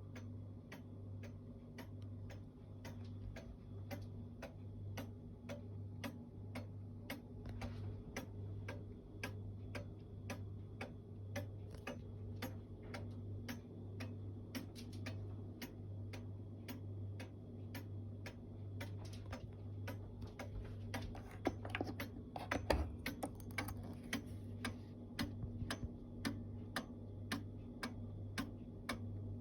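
Antique Black Forest cuckoo clock with a wooden-plate Philipp Haas & Söhne movement, ticking steadily, with a few louder clicks about two-thirds through.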